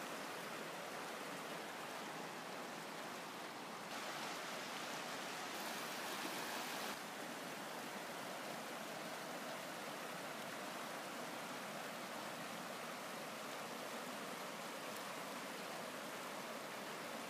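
Shallow, rocky mountain river rushing steadily over stones. It swells a little for a few seconds about a quarter of the way in, then drops back suddenly.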